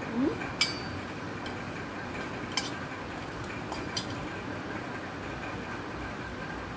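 Stainless-steel colander and cooking pot clinking three times, sharp light knocks a couple of seconds apart, as washed drumstick leaves are handled out of the colander, over a steady faint hiss.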